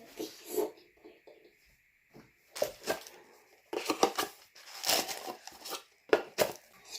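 Crinkling and rustling of bags of slime ingredients being handled, in a series of short, irregular bursts with brief pauses between them.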